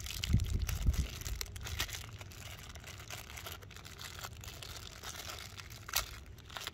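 Plastic wiper-blade adapter pieces and their packaging being handled: crinkling and scattered light clicks, with a few low bumps near the start and one sharper click near the end.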